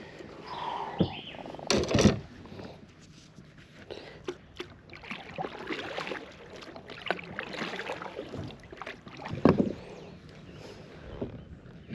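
Water splashing and sloshing, with a few sharp knocks and handling noises, as a hooked bluegill is brought in and landed. The loudest knocks come about two seconds in and again near the end.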